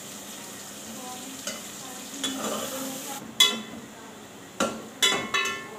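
Onions sizzling in hot oil in a metal pot while a metal spoon stirs them. In the second half the spoon knocks against the pot about four times, sharp clinks with a brief ring.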